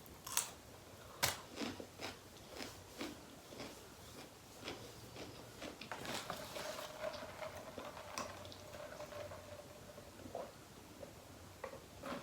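A person chewing and biting tacos close to the microphone: a run of short, sharp mouth and bite clicks, most frequent in the first half.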